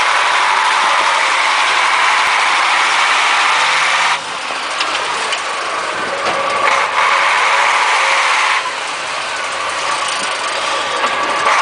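Heavy Russian six-wheel-drive army truck's diesel engine working hard as the truck ploughs through deep snow and slush, easing off twice and coming back up to full power.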